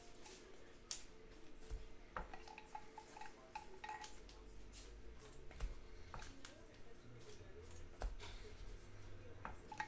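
Sports trading cards and their packaging being handled on a table: scattered light clicks, taps and a few small clinks, over a faint steady hum.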